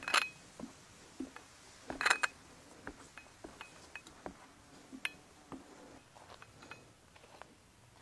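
Glassware clinking as it is carried: a glass teapot and a glass cup knock together in two sharp clinks with a short ring, one at the start and one about two seconds in, followed by lighter taps and ticks.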